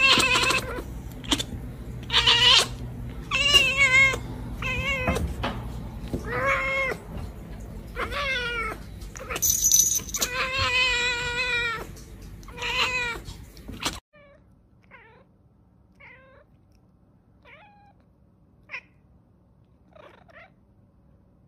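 A cat meowing over and over, about nine loud, drawn-out meows, some wavering in pitch. About fourteen seconds in, the sound drops abruptly to a few faint, short calls.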